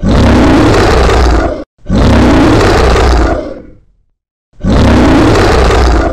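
A monster roar sound effect, heard three times in a row. The first roar cuts off abruptly, the second fades away, and a third starts after a short gap about four and a half seconds in. Each is loud, with a deep rumble under it.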